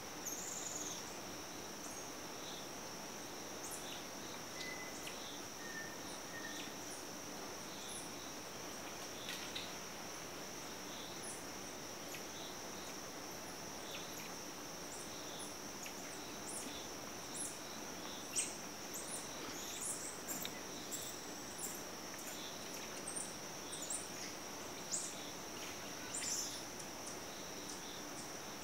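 Steady, high-pitched drone of insects, with scattered short, sharp high chirps and ticks over it that come more often and a little louder in the second half.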